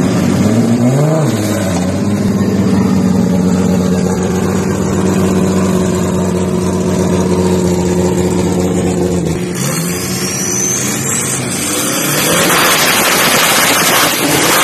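Drag car engine blipped once, up and back down, then held at a steady high rev for several seconds. Near the end a louder, rougher rushing noise takes over.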